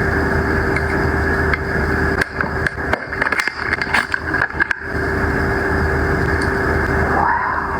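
Cosmetic packaging being handled, giving a run of sharp clicks and rustles in the middle over a steady hum.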